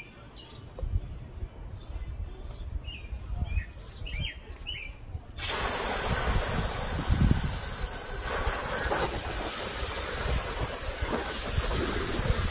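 Garden hose spray nozzle opened about five seconds in: a hard, steady hiss of water spraying onto greasy metal grill parts in a plastic tub.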